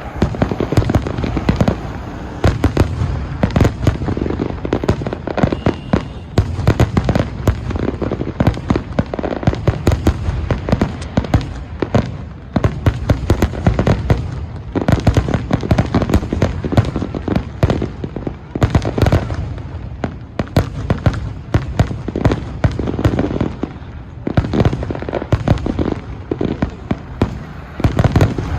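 Fireworks display going off: a dense, continuous run of booming bursts and crackling reports, one after another without pause.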